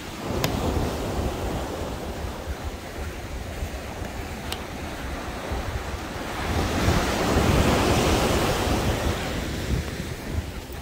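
Ocean surf washing on the beach, with wind buffeting the microphone; the rush of noise swells louder about two-thirds of the way through.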